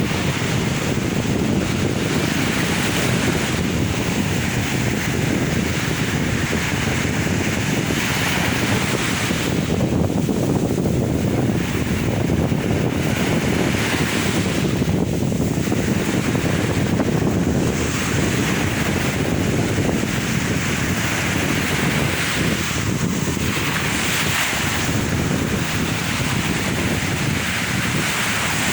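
Sea waves breaking and washing in, the hiss swelling every few seconds over a steady low rumble, with wind buffeting the microphone.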